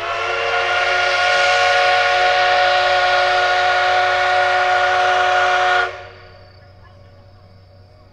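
Steam whistle of the C58-class steam locomotive C58 363, sounded as the departure signal: one loud, long blast of steady pitch lasting about six seconds, then cut off.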